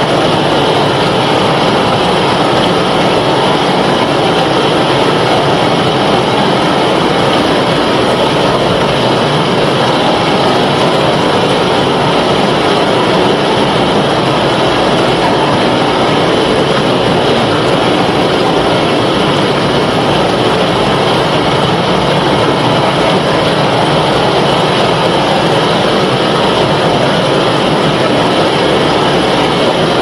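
Ocean surf: a dense, steady rush of breaking waves with no single wave standing out.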